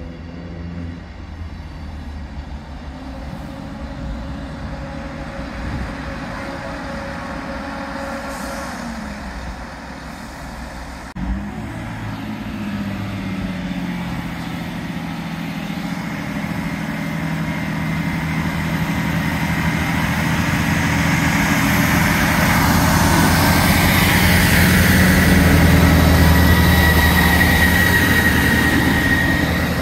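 Diesel train's engine running with a low rumble; about 11 s in its pitch rises. The noise then builds steadily to its loudest late on, with a thin high whine on top.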